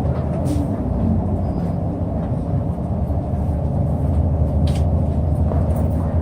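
Inside a city bus running: a steady low engine and road rumble, with a few faint rattles.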